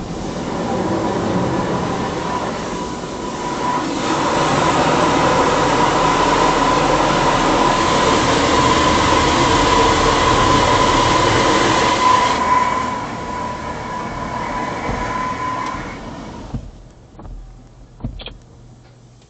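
Coleman Hanna Water Wizard touchless car wash running, heard from inside the car: a loud rush of spray against the car with a steady whine. It swells a few seconds in, eases later and cuts off suddenly, followed by a few clicks.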